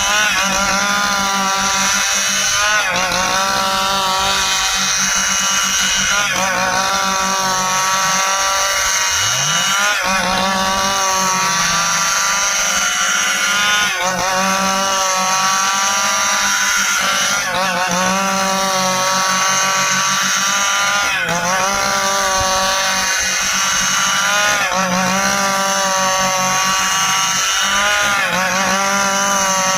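Stihl chainsaw running at high revs, cutting through dry ipê hardwood. Its pitch dips and recovers about every three and a half seconds as it bogs in the cut and picks up again.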